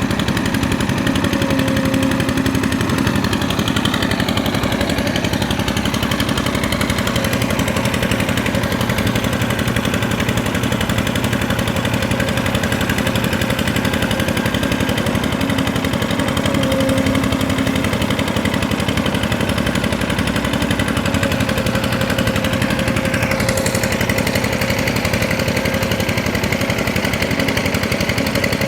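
Kobelco SK200 excavator's diesel engine running steadily with a rapid chatter, a low tone swelling louder a few times.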